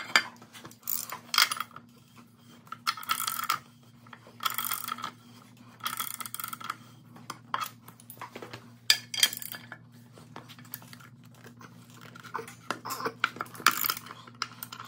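Metal tools and parts being handled while working the control arm bushing nuts: a series of short scraping and clinking bursts, a second or two apart, over a steady low hum.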